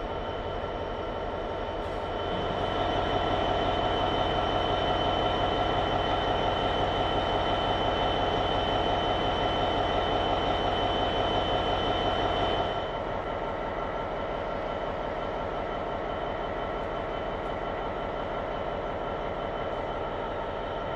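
Class 66 diesel locomotive's two-stroke V12 engine idling with a steady drone and whine. A louder, higher hum joins about two seconds in and cuts off suddenly a little past halfway.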